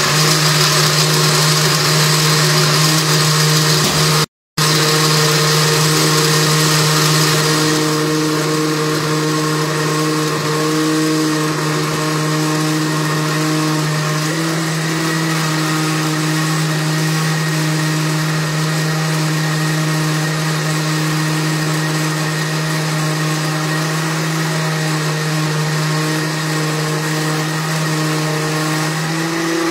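Electric countertop blender running steadily, its motor hum blending a milk mixture in a glass jar. The sound cuts out for a moment about four seconds in, and the higher rushing sound eases after about eight seconds.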